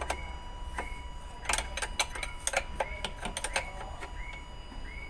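Open-end wrench clicking and scraping against the steel union nuts of diesel injector lines as they are tightened after bleeding air from the fuel system: irregular sharp metal clicks over a low steady hum.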